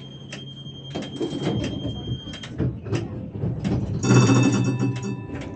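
Tram at a stop with its doors working: a steady high warning beep for about two and a half seconds amid clicks and knocks of the sliding-door mechanism. About four seconds in comes a loud bell-like chime that rings on and fades slowly.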